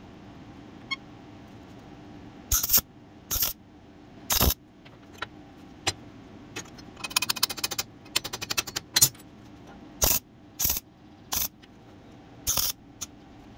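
MIG welder tack-welding a steel end plate onto a bracket. It makes a string of short separate bursts, about seven of them, with one longer run of rapid crackle in the middle.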